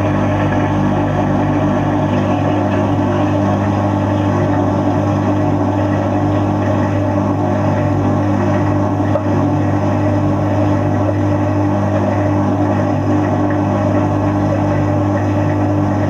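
Fisher & Paykel Nautilus dishwasher's pump motor running with a steady low hum, heard from inside the tub.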